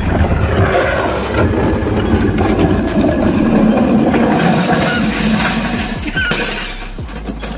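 Wheeled plastic trash bin with a rider aboard rolling and scraping down an asphalt driveway, with a continuous rattling clatter that fades out near the end.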